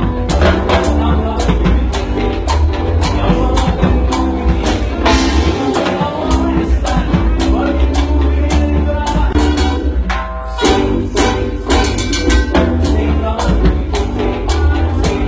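Latin dance band music with a steady beat of drums and hand percussion over heavy bass, the bass dropping out briefly about ten seconds in.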